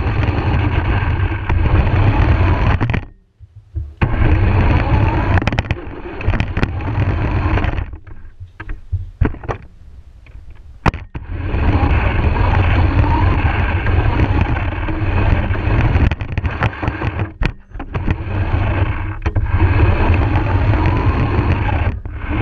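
Radio-controlled car's motor and wheels running, picked up by a camera mounted on the car as it drives across the floor. The running stops briefly about three seconds in and for a few seconds near the middle, with a few small clicks while it is stopped, then starts again.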